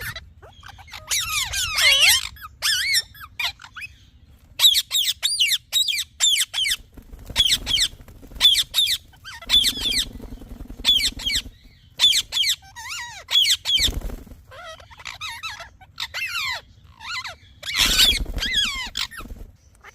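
Indian ringneck parrot chirping and squeaking: a long string of short, high calls that twist quickly up and down in pitch, coming in clusters with short gaps between them.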